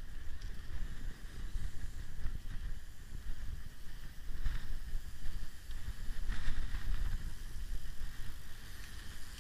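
Wind buffeting the microphone of a camera on a moving road bicycle, an uneven low rumble that swells and dips, with faint road noise from the ride.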